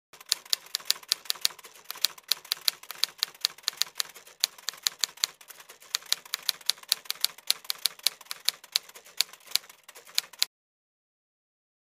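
Typewriter keystroke sound effect: a fast, uneven run of sharp key clicks, about four or five a second, that stops abruptly near the end.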